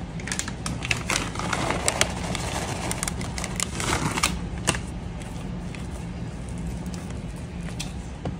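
Scattered light clicks and ticks as a handful of chocolate chips are sprinkled into banana bread batter in a plastic bowl, thinning out after about five seconds as a silicone spatula starts folding the batter.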